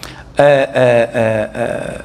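A man's voice: a few quick syllables, then one long held vowel-like tone near the end.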